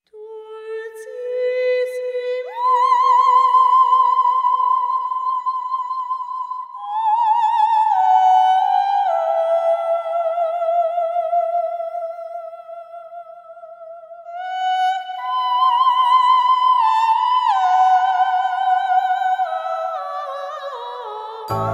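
Background music: a single high, wordless melody with wide vibrato in slow held notes that leap up and step back down, with no accompaniment; a fuller backing with low notes comes in right at the end.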